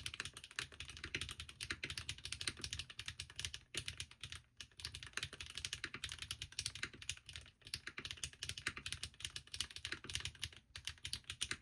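Fast continuous typing on a custom mechanical keyboard (Bahm Studio Droplet) fitted with Krytox-lubed HMX Catmint switches and Linworks / PBTfans Pyga keycaps: a dense stream of key strokes, with a couple of brief pauses about four seconds in.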